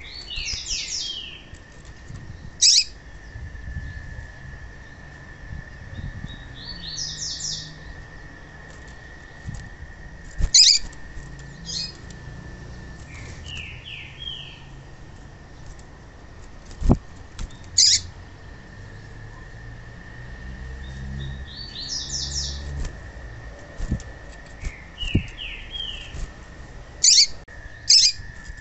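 Female papa-capim (a Sporophila seedeater) calling: short clusters of quick, high, falling chirps every few seconds, with single sharp high chirps between them. This is the female call played to excite a male into song. A faint steady high whine runs underneath, and there are two sharp knocks.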